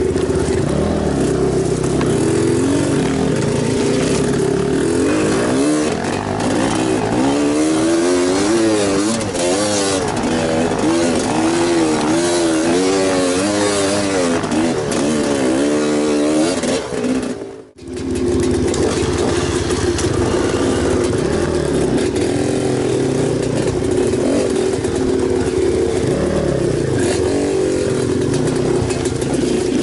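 Enduro dirt bike engine running hard, its revs rising and falling quickly again and again through the middle stretch, then holding steadier. The sound drops out abruptly for a moment about two-thirds of the way through.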